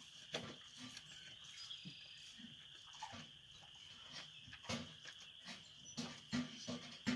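Cow with her newborn calves making short, soft sounds, scattered irregularly over a faint steady high hiss.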